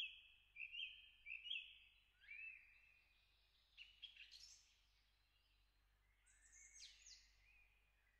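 Faint birdsong from a stock birds-chirping sound effect: short chirps and warbled phrases, bunched in the first couple of seconds, again about four seconds in and around seven seconds.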